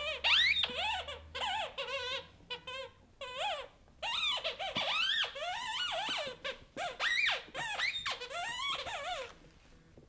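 Squeaky chicken dog toy squeaking over and over as a chocolate Labrador puppy bites and chews it. Each squeak bends up and down in pitch. The squeaking stops near the end.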